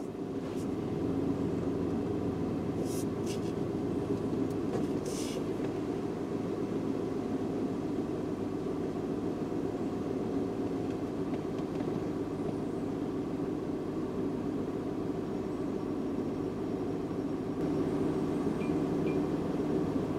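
Car engine idling steadily, with a few short hissy sounds about three and five seconds in.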